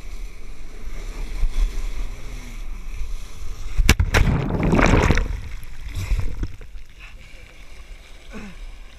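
Wind buffeting the microphone over the hiss of a flyboard's water jets. About four seconds in come a couple of sharp knocks and then a loud splash and rush of water as the rider plunges into the sea. After that the sound drops to a quieter churn of water.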